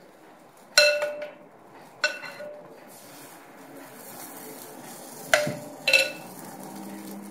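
Metal spoon clinking against a glass mixing bowl while ladling pancake batter, four sharp clinks that each ring briefly: one about a second in, one about two seconds in, and a quick pair near the end.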